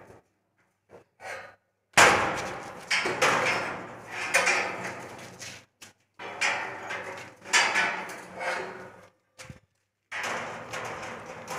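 Corrugated steel rolling shutter banging and rattling in three long bursts, each starting with a sharp bang and fading away, as its spring drum is worked with steel rods.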